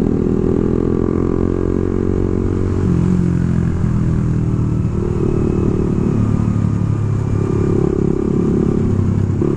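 Suzuki GSX-R150's single-cylinder engine running under way, its pitch rising and falling several times as the throttle and gears change.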